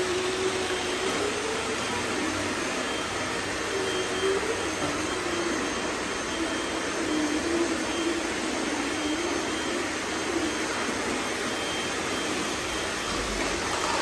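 Several robot vacuums running together: a steady vacuum hum with a motor whine that wavers up and down in pitch.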